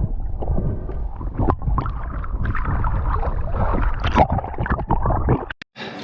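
Muffled underwater rumble with gurgling water and scattered knocks, as heard through a diving camera's housing. It cuts off suddenly near the end.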